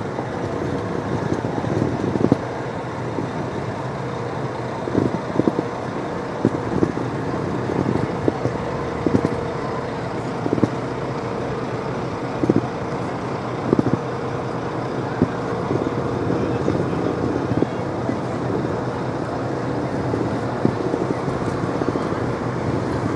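City street ambience: a steady hum of traffic with a faint steady drone, broken by irregular low thumps every second or so.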